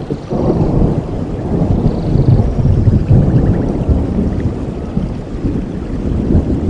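Rain falling steadily with a low rolling rumble of thunder that swells about half a second in and keeps rumbling.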